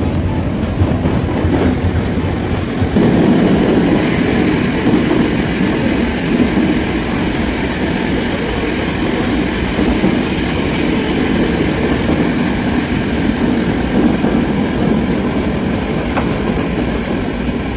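Metro train running through a tunnel, heard from inside the carriage: a loud steady running noise that grows louder about three seconds in.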